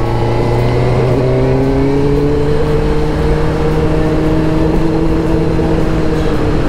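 2004 Suzuki GSX-R 600's inline-four engine pulling under steady throttle, its pitch climbing slowly for the first few seconds and then holding, with wind rushing past the helmet camera.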